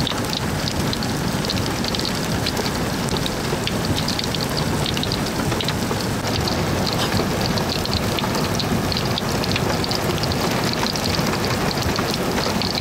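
Hailstorm: hailstones and rain pelting down in a dense, steady patter, with many sharp ticks of individual stones striking a hard surface.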